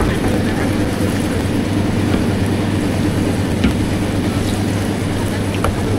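Steady low mechanical hum, like a running motor or engine, with a few light clicks.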